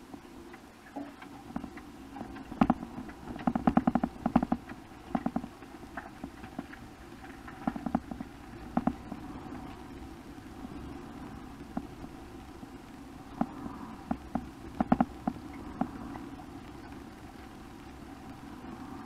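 Suzuki GSX-R750's inline-four engine running with a steady, muffled hum as the motorcycle moves off slowly. Clusters of sharp clicks and knocks close to the microphone come and go, loudest a few seconds in and again about three quarters of the way through.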